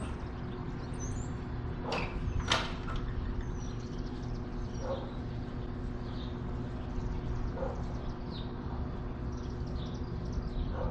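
Faint, high, scattered chirps from a flock of small birds circling overhead, over a steady low hum. Two short, sharper sounds come about two seconds in.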